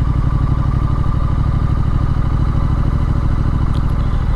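Triumph Street Scrambler's 900 cc parallel-twin engine running at a steady speed while the bike is ridden.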